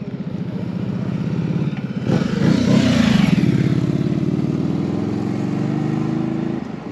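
Ducati Streetfighter V4 motorcycle engine running, with a sudden loud surge of revs about two seconds in, then holding a steady, louder note that drops away near the end.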